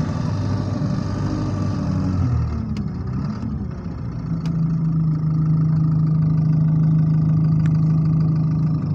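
Bus engine heard from inside the passenger saloon, its moaning note rising and falling over the first two seconds or so, then settling into a steady low drone from about halfway through. The title calls it a moany engine running in limp mode.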